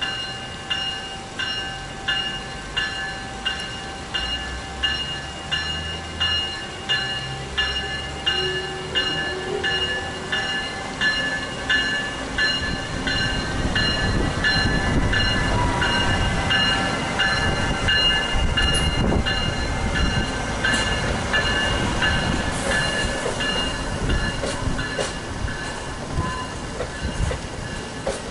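Amtrak electric locomotive and passenger train pulling past, with a bell ringing steadily about once a second. The wheels rumble and clatter louder as the cars come alongside from about halfway through.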